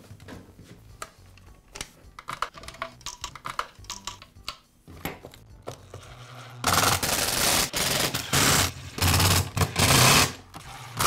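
Light clicks and knocks as the plastic motor housing is handled and seated. Then, about seven seconds in, a cordless drill-driver runs in several short bursts as it drives the screws into the housing.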